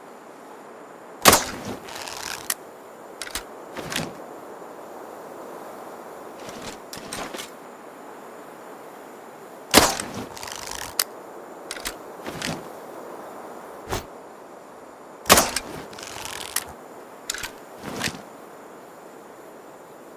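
Barnett Headhunter crossbow shot three times, each release a loud sharp snap with a short ringing tail. Between shots come several quieter clicks and knocks.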